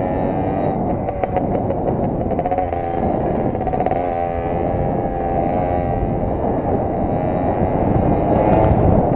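Simson moped's two-stroke single-cylinder engine running under way, its pitch wavering with the throttle and climbing toward the end.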